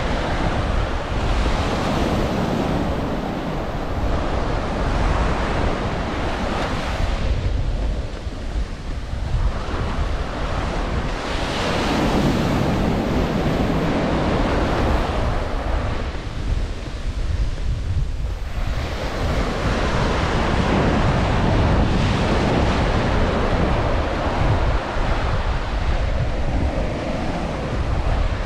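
Ocean surf breaking and washing up a beach, the hiss of the waves swelling and easing every several seconds with brief lulls between. Wind buffets the microphone with a steady low rumble underneath.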